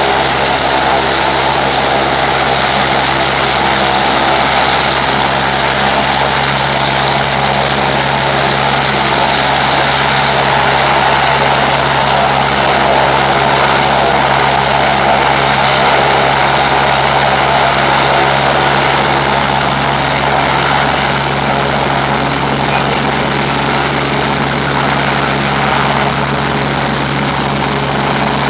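Agusta A109 K2 helicopter's twin turbine engines and rotor running steadily on the ground before lift-off, a constant whine over a steady rotor hum.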